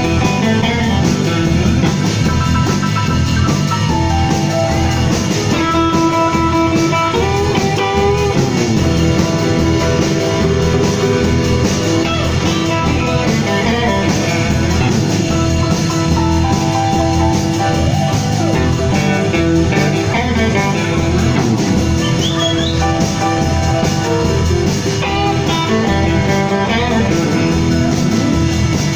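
A blues band playing live: electric guitar notes, some bending in pitch, over electric bass and a drum kit keeping a steady beat.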